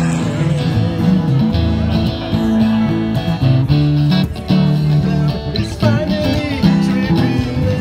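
Live music from two amplified acoustic guitars playing an instrumental passage, strummed and picked, with no singing.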